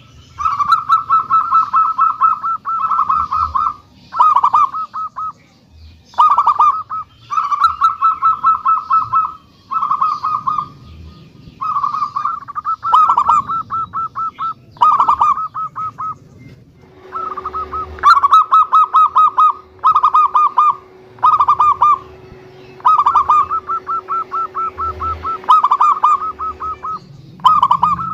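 Local zebra dove (perkutut) cooing, a bird kept for its big voice: a long run of bursts of rapid staccato coos, each burst about a second long with short pauses between.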